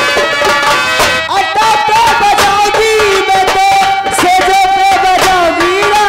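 Live folk-theatre music with drumming and a melody. From about a second in, a singer holds long, wavering notes over the instruments.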